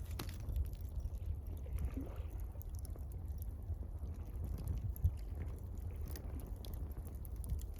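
Water lapping gently against the shore, with a campfire crackling in scattered sharp pops over a steady low rumble.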